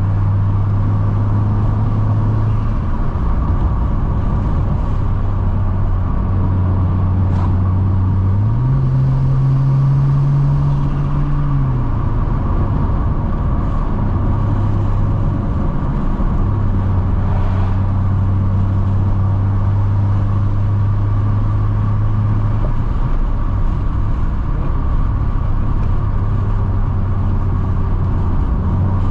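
Car engine and exhaust droning steadily at cruise over road noise. About eight seconds in the note rises for a few seconds, then settles back to its cruising pitch.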